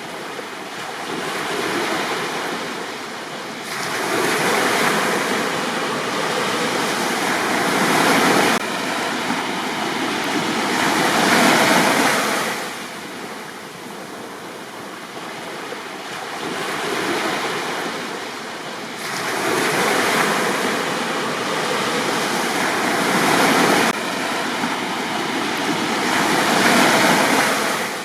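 Sea waves breaking and washing up on a beach, the rush of water swelling and fading in surges every few seconds.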